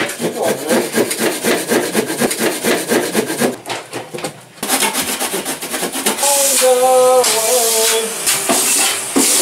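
Fast, repeated rubbing and scraping strokes on wood for the first few seconds. About six seconds in, a Numatic Henry vacuum cleaner starts running loudly, its motor whine shifting in pitch.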